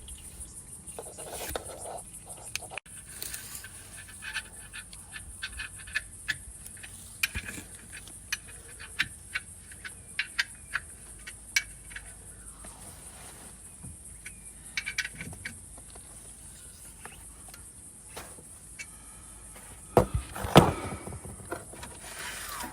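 Hand tools and parts being handled during a car oil change: irregular clicks and taps, then a louder clatter of knocks about twenty seconds in, over a steady high hiss.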